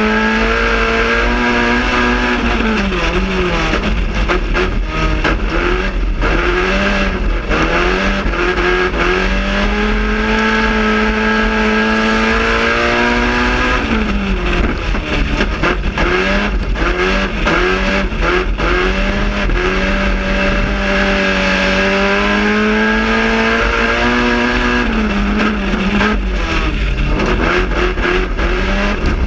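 Raspy GM Quad 4 inline-four race engine at full throttle, heard from inside the car: the pitch holds high and steady on each straight, drops off as the driver lifts for the corner about every eleven seconds, wavers through the turn, then climbs again.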